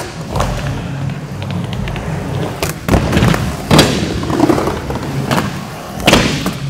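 Skateboard wheels rolling over wooden ramps, with several sharp clacks and thuds of the board striking the ramp, the loudest about four seconds in and again about six seconds in.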